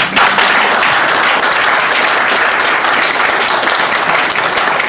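Audience applauding, starting suddenly and keeping up steadily.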